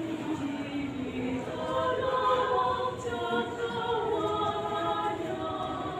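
Women's church choir singing in parts, holding long chords that swell louder about two seconds in.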